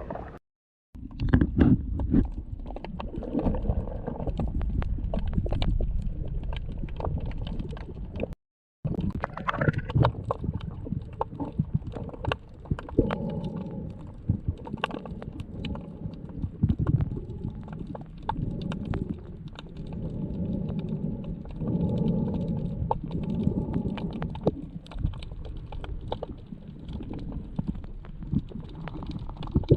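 Muffled underwater noise: a low, uneven rumble with many sharp clicks and crackles. It cuts out briefly twice, once near the start and once about eight seconds in.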